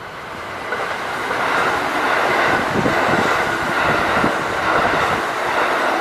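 Kintetsu Osaka Line electric train passing close by. Its wheel and motor noise builds over the first second and a half and then stays loud and steady, with a run of wheel knocks over rail joints around the middle.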